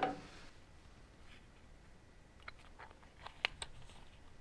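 A few faint, sharp plastic clicks and taps from handling a clamp meter's open battery compartment, most of them in the second half.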